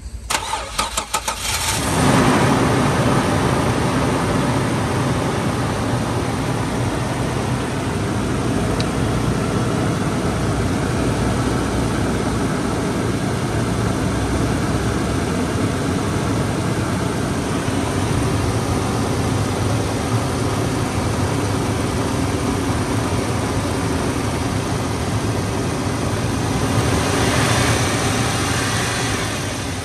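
A 2005 Toyota Prado's 4.0-litre petrol V6 is cranked by the starter for about two seconds, catches, and settles into a steady idle, heard close up from the open engine bay. The engine sound rises slightly near the end.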